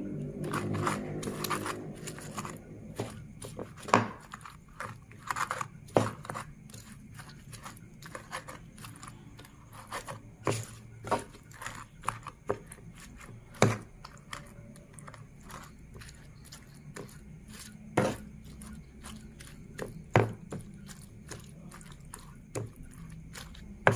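Pestle crushing whole chilies, tomatoes, garlic and shallots in a cobek mortar for sambal: irregular wet crunching and squashing with sharp knocks of the pestle against the mortar, a few of them much louder than the rest.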